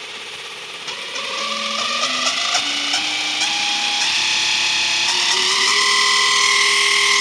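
Lathe spindle belt drive with 3D-printed plastic pulleys whining as the speed is stepped up, the tone climbing in steps and getting louder, with a few clicks about one to three seconds in. The whine comes from the narrow belt at high spindle speed, and the owner suspects the hollow printed pulley is ringing.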